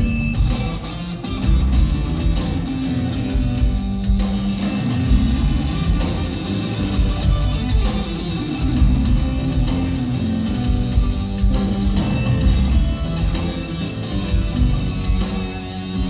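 A rock band playing live, heard from the audience: electric bass, drum kit and keyboards in a continuous instrumental passage, with regular drum strokes over a heavy bass line.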